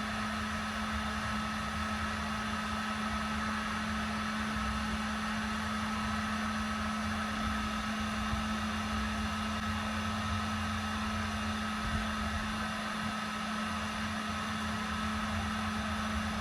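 Steady machine hum: a constant droning tone over a low rumble that holds unchanged throughout.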